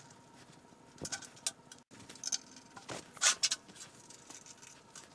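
Gloved hands handling small parts on an engine: scattered light clicks, taps and scrapes of metal, with a few brief rustles near the middle.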